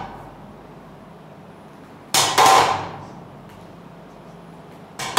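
Sharp metallic clanks, each a quick double hit with a short ringing tail, repeating about every three seconds in time with barbell squat reps in a steel squat rack. One pair comes about two seconds in and another at the very end.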